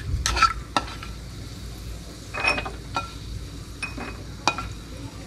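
Wooden spatula scraping and knocking in a frying pan as ghee-fried cashews are scooped out and tipped into a glass bowl: a handful of scattered taps and clinks, a couple of them ringing briefly.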